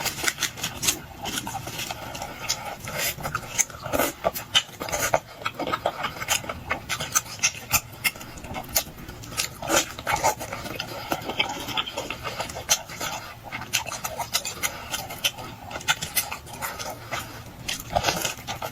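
Eating lobster: wet chewing and mouth smacking, heard as a dense run of sharp, irregular clicks and crackles.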